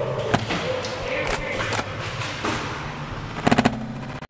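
Scattered sharp knocks and clacks of a Nerf Rival foam-ball game: blasters firing and balls striking plywood barriers, with a quick run of about five clacks about three and a half seconds in.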